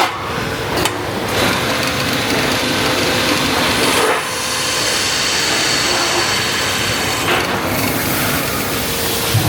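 Machine noise: a steady, dense rasping noise that changes character about four seconds in and again about seven and a half seconds in.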